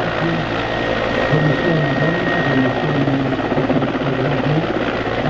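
Mil Mi-14PŁ naval helicopter hovering low over water: a steady, loud din of main-rotor and twin turboshaft engine noise, with low tones that waver in pitch.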